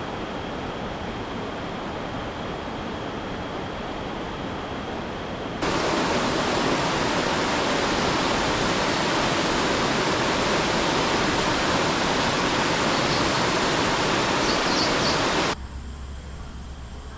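Steady rush of flowing water, like a mountain stream or waterfall. About five and a half seconds in it cuts abruptly to a louder, fuller rush, which drops away just as suddenly near the end.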